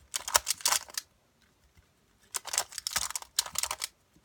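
Plastic Rubik's Cube turned quickly in a speed solve: two bursts of rapid clicking and clacking, with a pause of about a second between them.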